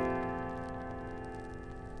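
Soft piano background music: a held chord slowly fading away.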